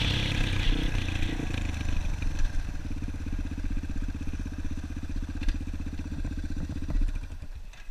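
Dirt bike engine running as the bike slows and rolls to a stop, then idling with an even, rapid putter for a few seconds before it cuts off near the end.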